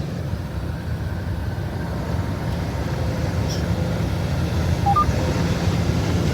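Steady low engine and road rumble inside a semi truck's cab while driving, growing slightly louder. About five seconds in, a short two-note electronic beep sounds, lower note then higher.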